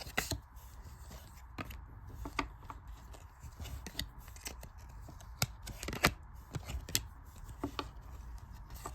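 NBA Hoops trading cards being handled and moved: irregular light clicks and taps as the cards slide against each other and knock on the table, with one sharper tap about six seconds in.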